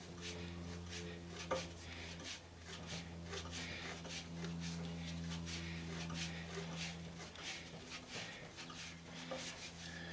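Irregular metallic clicks and scrapes of a large screwdriver working at a stubborn slotted screw in a sander's housing, over a steady low hum.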